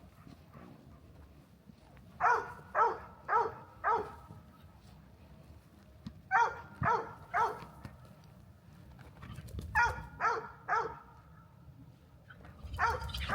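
A dog barking in short runs of three or four barks, with a few seconds' pause between runs.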